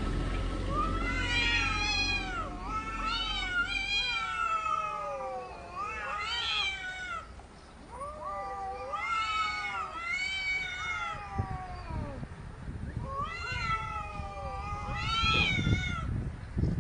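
Two cats, a seal-point Siamese-type and a black-and-white cat, yowling at each other in a territorial standoff. There is a string of long, wavering howls, each a second or two, rising and falling in pitch.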